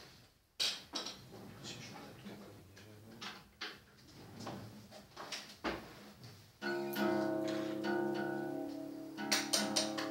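Metal cutlery clinking and rattling in a plastic cutlery tray, a run of scattered clicks, then an acoustic guitar strummed: a chord rings out about two-thirds of the way in, with further strums near the end.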